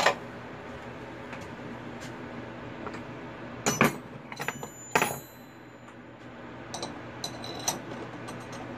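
Bench drill press running with a steady hum while drilling copper sheet, with sharp metallic clinks that ring briefly about four and five seconds in and lighter clinks near the end.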